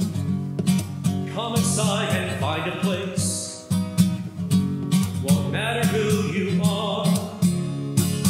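Acoustic guitar strumming a steady rhythm under a group singing a hymn. The voices come in twice, in two sung phrases, with guitar alone between them.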